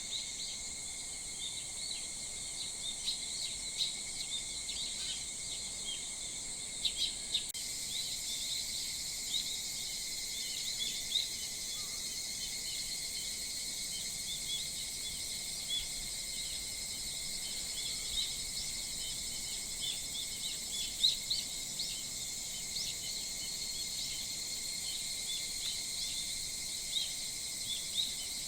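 Summer early-morning chorus of insects and wild birds: a steady high-pitched insect drone with many short bird chirps over it.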